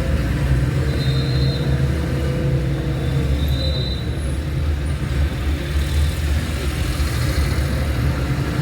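A car being driven: steady low engine and road rumble.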